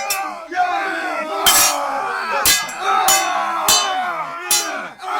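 Medieval battle sound effect: a crowd of men shouting battle cries over one another, cut by about six sharp, ringing metal clashes of swords.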